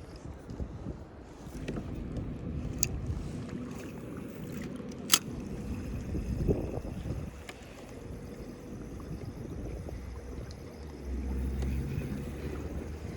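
Wind and water noise on a kayak, with a low rumble that swells near the end. Two sharp clicks or knocks cut through it, the louder one about five seconds in.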